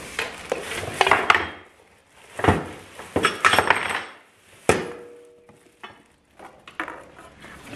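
Cardboard box and plastic wrap handled while a parts kit is unpacked, with metal brackets clinking and clattering onto a wooden workbench. A sharp knock comes about a third of the way in and another just past the middle, the second ringing briefly.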